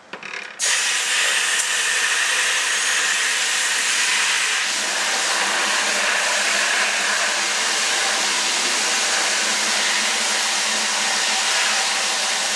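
Water from a garden hose pouring into a plastic 5-gallon bucket as it fills, a steady rushing hiss. It starts suddenly about half a second in, when the water is turned on.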